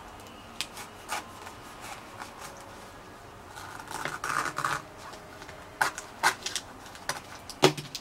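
Kitchen knife cutting and levering into a durian's spiky husk: a scratchy rasp of the blade through the rind about halfway through, and several sharp cracks as the husk is worked apart along its seams, the loudest near the end.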